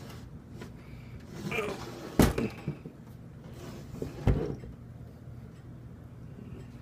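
A metal box fan being handled: a short rustle, then two sharp knocks about two seconds apart, over a faint steady low hum.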